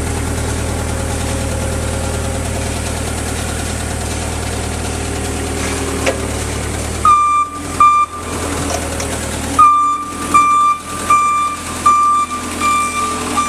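Linde H18 forklift engine idling steadily, then from about seven seconds in the forklift's reversing alarm beeps repeatedly, one high tone about every 0.7 seconds, over the running engine.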